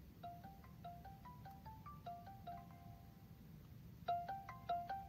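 Phone call ringing tone: a chime-like melody of quick, bell-like notes that plays through once and starts again louder about four seconds in, while the call waits to be answered.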